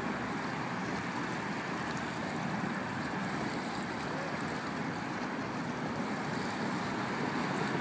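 Steady rushing of wind and choppy water, with no distinct events.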